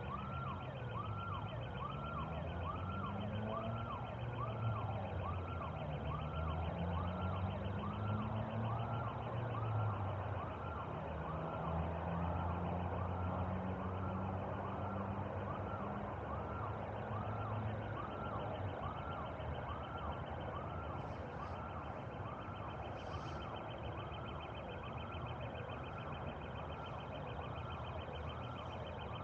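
A siren-like tone rising and falling steadily, about one and a half sweeps a second, with lower gliding hums underneath in the first half.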